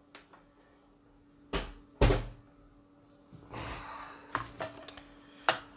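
Craft supplies being handled on a table: two dull knocks about half a second apart, as the plastic ink-pad storage and ink pads are set down. Then comes a short rustle and a few light clicks near the end, over a faint steady hum.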